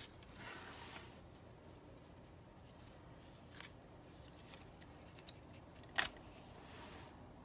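Faint rustles of stiff paper pages being handled as a handmade accordion book is unfolded, with a sharp tap about six seconds in.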